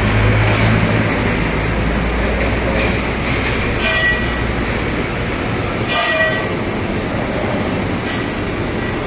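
Five-axis fettling grinder running loud and steady, with a low hum that drops away about halfway. Two brief metallic rings sound about four and six seconds in.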